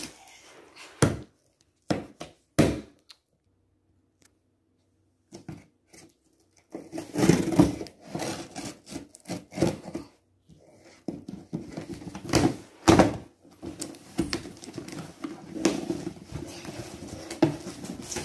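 A cardboard shipping box being handled and pulled open: a few sharp knocks, a quiet stretch, then from about seven seconds in a run of irregular thumps, knocks and scraping of cardboard.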